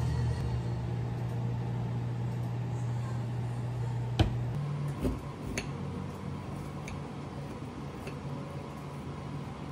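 Steady low machine hum, like a running appliance, shifting slightly in pitch partway through, with a few light clicks and clinks on top.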